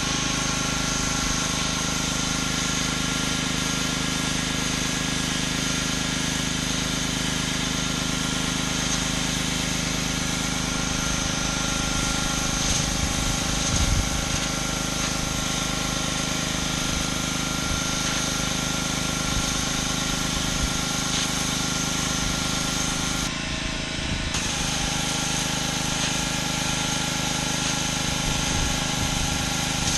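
Gas pressure washer running steadily, its engine drone under the hiss of the high-pressure water spray on concrete. The spray hiss drops out for about a second about three-quarters of the way through, then comes back.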